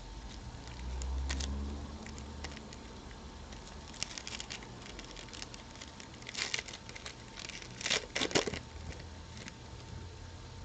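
Trading-card packaging being torn and crinkled open, with cards handled, in short crackly bursts that are loudest a little before the end.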